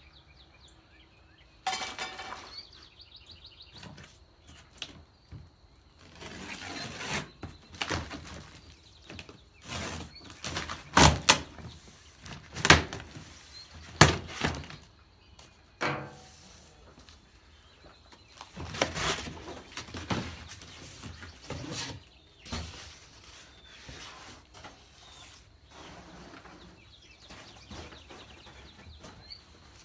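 Cardboard packing boxes being pulled open and handled: rustling and scraping of cardboard with scattered knocks and thuds, three of them sharp and loud a little before the middle. Birds chirp faintly behind.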